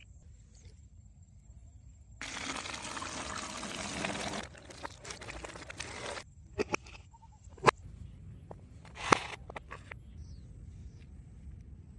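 Water pouring in a steady stream starting about two seconds in, heavier at first and then thinner, stopping about six seconds in. A few sharp knocks follow.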